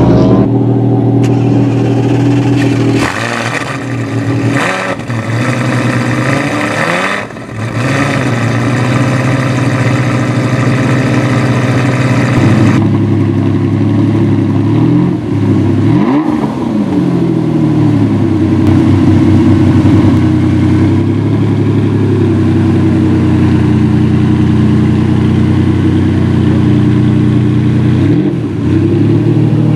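Supercar engines running loudly and being revved, the pitch dipping and climbing again several times.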